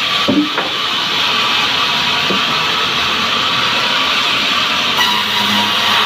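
Sawmill band saw running steadily with a loud, even machine noise, while timber knocks a few times as boards and logs are handled on its table.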